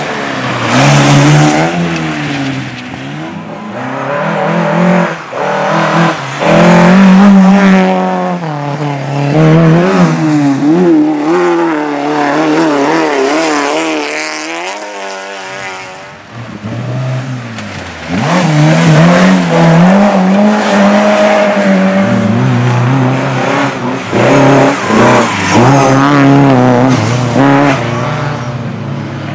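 Rally car engine driven hard, revving up and down through gear changes, with some tyre squeal. About halfway through the engine note climbs and cuts off sharply, then revs pick up again.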